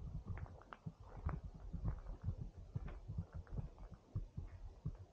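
Irregular low thumps, several a second, of a hand-held camera being carried at walking pace, with footsteps crunching now and then on a gravel path.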